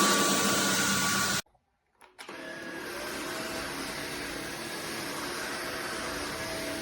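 Cordless stick vacuum running with a steady whine. It cuts out abruptly about a second and a half in. Under a second later it comes back quieter, with a lower-pitched hum.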